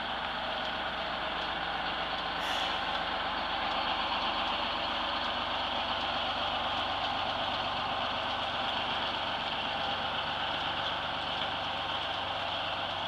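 Diesel engine of a GMC New Look transit bus, a two-stroke Detroit Diesel, running steadily as the bus drives slowly past. There is a brief hiss about two and a half seconds in.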